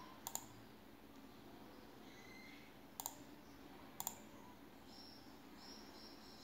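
Near-silent room tone broken by three sharp mouse clicks on the laptop, the last two about a second apart. A faint, steady high tone comes in about five seconds in.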